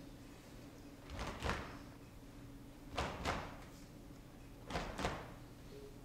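Slow heartbeat rhythm of percussion: paired thumps, a strong beat and a second one close behind, repeating about every two seconds, three times.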